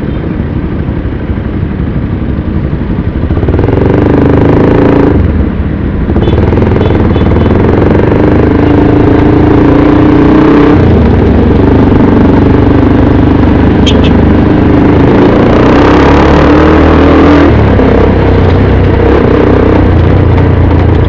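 Motorcycle engine running under way in city traffic, heard from the rider's seat. Its note rises, then drops back about five, eleven and seventeen seconds in.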